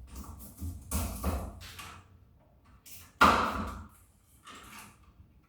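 Box cutter scraping and slicing along electrical cable sheathing, with rustling of the cable, and one sudden loud sharp sound about three seconds in.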